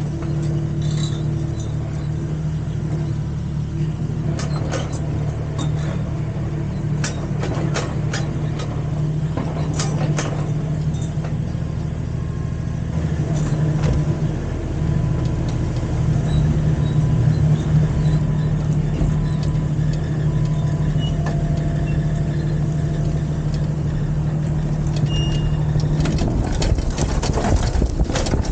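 Mini excavator engine running steadily, with scattered metallic clanks and clicks from the machine working. Near the end the steady engine note breaks up into denser clatter.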